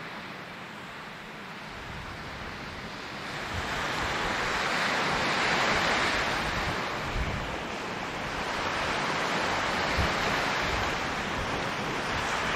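Sea waves washing onto the shore, the surf swelling twice, with wind buffeting the microphone in low rumbles.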